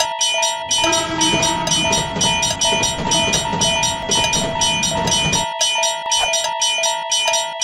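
Japanese railroad crossing warning bell ringing in a fast, even rhythm, with a train rumbling past from about a second in; the train noise cuts off suddenly about five and a half seconds in while the bell keeps ringing.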